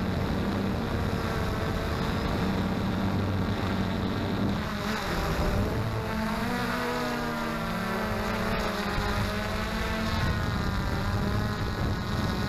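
XK Detect X380 quadcopter's electric motors and propellers droning steadily; from about five seconds in, the pitch wavers up and down as the motors speed up and slow down. Wind noise on the microphone runs underneath.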